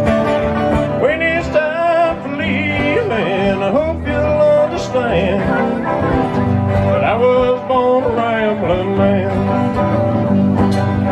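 Live country-rock band playing an instrumental break, with a lead melody line bending and sliding in pitch over the rest of the band.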